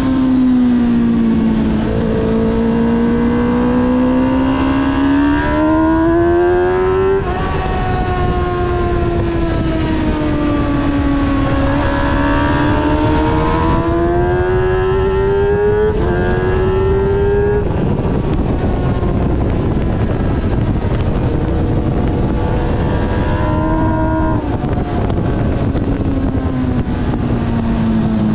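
Motorcycle engine heard from onboard over heavy wind rush, its pitch rising under acceleration and falling off into corners, with quick breaks in pitch at gear changes about 7 and 16 seconds in. For several seconds after that the engine fades under the wind, then returns, falling in pitch near the end.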